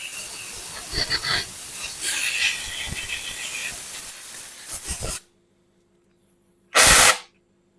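Compressed-air blow gun hissing as it blows dust out from around the open fuel injector holes of a Toyota Yaris engine, in a few louder spurts, stopping about five seconds in. A short loud burst follows near the end.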